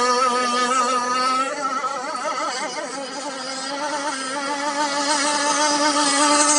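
Small motor of a model shrimp boat running with a steady whine, its pitch wavering for a second or two near the middle.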